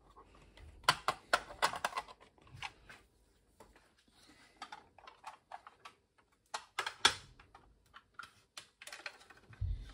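Irregular sharp clicks and taps in quick clusters, the loudest run about a second in and another about seven seconds in.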